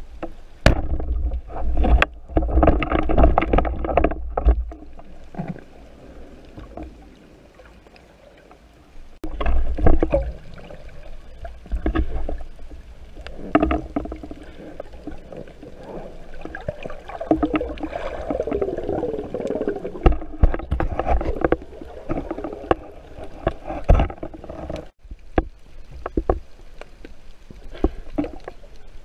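Underwater water noise picked up by a camera housing on a moving speargun: water rushing and bubbling in uneven surges, with scattered clicks and knocks.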